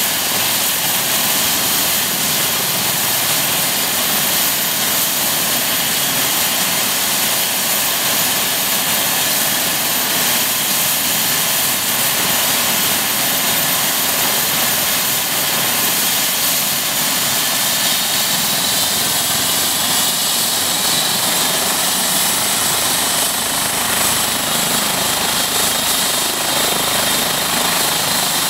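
Eurocopter EC135 twin-turbine helicopter running on the ground with its rotors turning: a loud, steady mix of turbine whine and rotor noise, the whine edging up in pitch in the second half.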